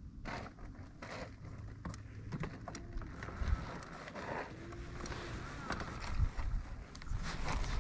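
Quiet ambience on a fishing boat: a low steady rumble of wind and water against the hull, with scattered small clicks from handling the rod and spinning reel.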